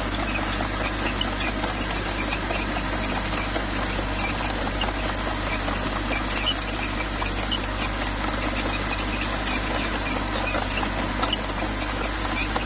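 Mini crawler bulldozer's engine running steadily, with a dense scatter of small high squeaks and clicks throughout as it works rock.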